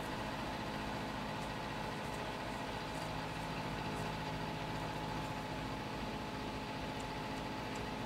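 Steady machine hum with a thin, higher steady tone running through it, and a few faint ticks.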